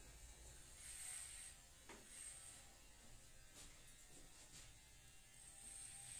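Electric hair clippers buzzing faintly in several short spells as they run over a closely shaved scalp.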